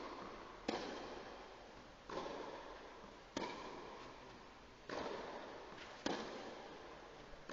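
Tennis rally: racket strings hitting the ball five times, about one shot every second and a half, each crack ringing out in the echo of a large indoor hall.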